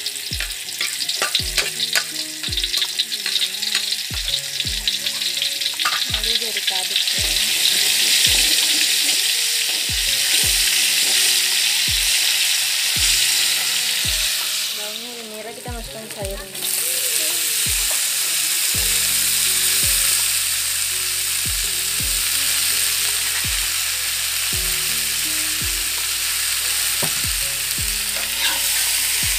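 Spice paste sizzling hard in hot oil in a wok while a metal spatula stirs it, then chopped leaves frying in it; the sizzle drops away for a moment about halfway and comes back. Background music with a steady beat runs underneath.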